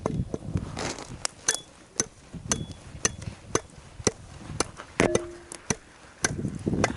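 An axe knocking into a piece of dry birch wood to split it, a string of sharp knocks about two a second.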